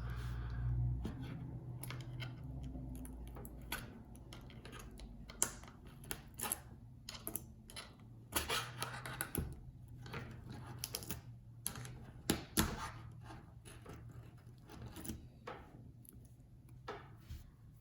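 Scattered small clicks, taps and scrapes of hand repair tools against an opened iPhone 8, working at the battery held by strong adhesive, over a faint low hum.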